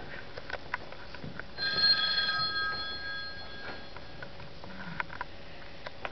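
A stage telephone-ring sound effect played in a theatre: one ring of several steady tones lasting about a second and a half, starting about a second and a half in, with a few faint clicks around it.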